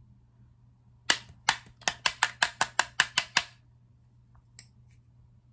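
A makeup brush tapped against a hard surface about a dozen times in quick sharp clicks, spaced at first and then about five a second, to knock excess powder off the bristles; two faint ticks follow.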